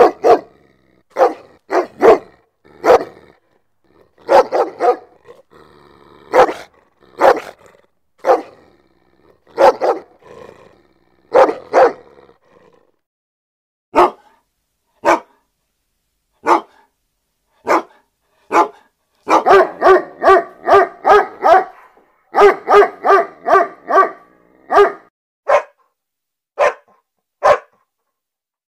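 A dog barking: single sharp barks at uneven intervals, then fast runs of about four or five barks a second from about two-thirds of the way in, then a few single barks again near the end.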